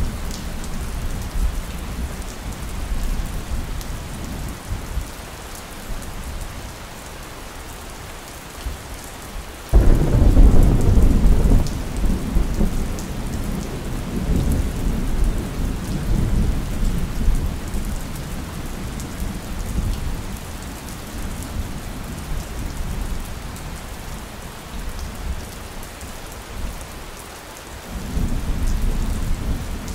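Steady rain with thunder. A low rumble fades over the first few seconds, a sudden loud thunderclap about ten seconds in rolls on and slowly dies away, and another rumble starts near the end.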